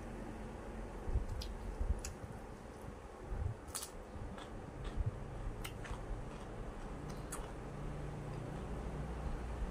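Close-up eating sounds: chewing with moist mouth clicks and crisp crunches, including a sharp crunch about four seconds in as a bite of raw cucumber goes in, along with a few soft knocks from hand and plate.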